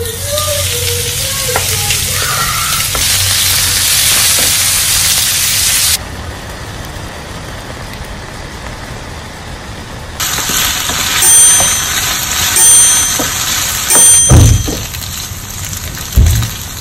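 Beef cubes sizzling in hot oil in a frying pan on high heat, the hiss building over the first few seconds, then frying and bubbling as the meat's released juices boil off. A few dull knocks near the end as the meat is stirred with a wooden spatula.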